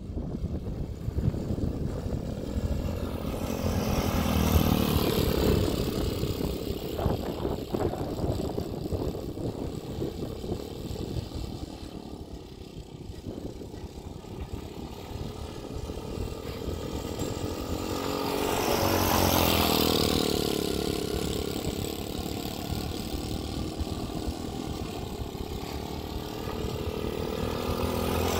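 Vitacci T-Rex 125 cc buggy engine running as the buggy drives around, its pitch rising and falling with the throttle. It swells louder about four to five seconds in, again around nineteen seconds in, and near the end as the buggy comes close.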